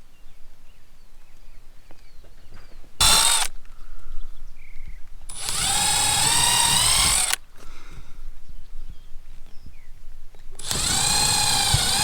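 Power drill running in three bursts, a short one, a longer one of about two seconds, then another near the end, its motor whine wavering in pitch.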